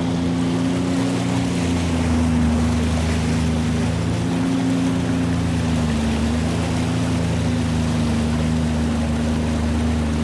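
Personal watercraft engine, a 2024 Sea-Doo Explorer Pro 230's supercharged Rotax three-cylinder, running at a steady cruising speed with water rushing past the hull. The engine note holds steady, with a slight dip in pitch about six seconds in.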